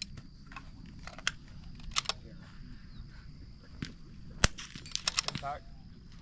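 Several .22 LR rimfire rifle shots at uneven intervals, sharp and short. The loudest comes about four and a half seconds in, followed by a quick run of shots just after.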